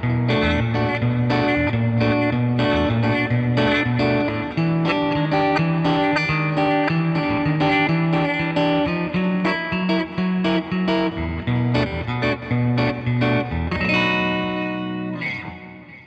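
Bacchus BJM-1R Jazzmaster-style electric guitar played through a Nux MG-30 modeler, picking a melodic line of single notes and chords. Near the end a chord is left ringing and fades away.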